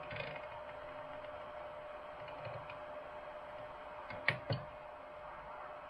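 Two quick sharp clicks a little past the middle, a quarter-second apart, from the rotary knob on a Prusa MK3S printer's LCD controller being pressed to enter a letter. A faint steady hum runs underneath.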